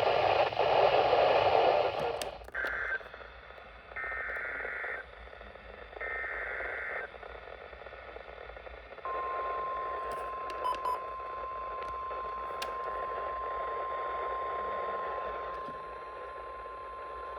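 Emergency Alert System activation over weather radio: three short bursts of warbling digital header data about a second apart, then the long single-pitch warning alarm tone held steady for about nine seconds, over radio hiss. The alarm tone marks the start of a warning, here a severe thunderstorm warning.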